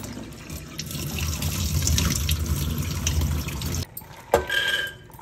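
Water running and splashing into a vessel, stopping abruptly about four seconds in, followed by a knock and a brief ringing tone.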